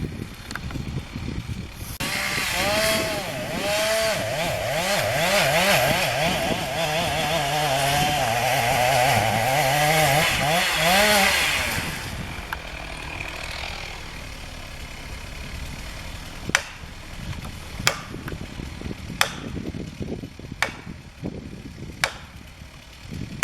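Chainsaw running for about ten seconds, its engine revving up and down repeatedly as it cuts, then dropping away. Several sharp knocks or cracks follow near the end.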